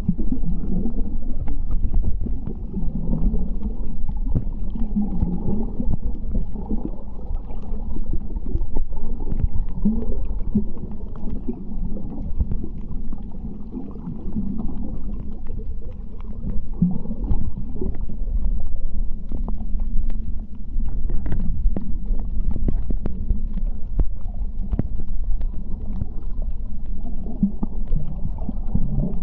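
Muffled underwater ambience: a steady low rumble of water with short low swells and scattered faint clicks, heard through an underwater camera.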